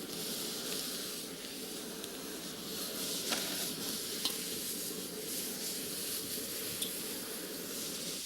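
A stir-fry of squid and vegetables sizzling steadily in hot oil in a pan, with a few short sharp clicks.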